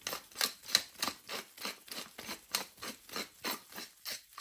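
Hand pepper mill grinding peppercorns as it is twisted back and forth, a quick even run of dry crunching clicks at about four a second.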